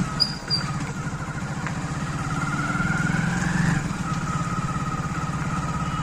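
Hero Splendor motorcycle's single-cylinder four-stroke engine running with a rapid even thud. Its pitch climbs for about three seconds, drops back just before the four-second mark, then holds steady.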